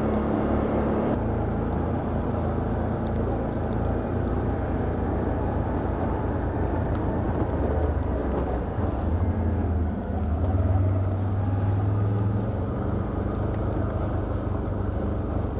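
Can-Am Outlander ATV engine running steadily under way in low gear, with trail noise over it; the engine note rises briefly about ten seconds in.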